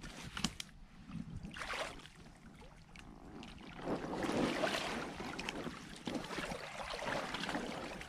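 Shallow water sloshing and splashing around a float tube as a person wades in it and stands up out of the lake, the splashing loudest from about four seconds in, with a few knocks in the first two seconds.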